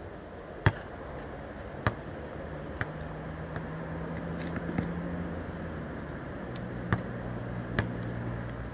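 A basketball bouncing on an asphalt court after glancing off the rim: three sharp bounces in the first three seconds, coming quicker each time, then two more near the end. A steady low hum runs underneath.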